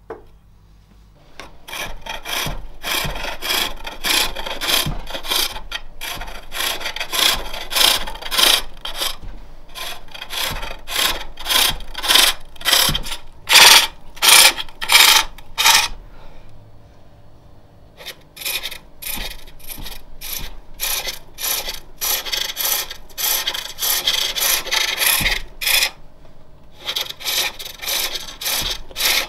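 Turning tool cutting a spinning jacaranda plate blank on a spring-pole lathe: a run of short rasping cuts, about two a second, each coming as the treadle drives the work toward the tool and broken off on the return stroke. The cutting starts about a second and a half in and stops for about two seconds around the middle.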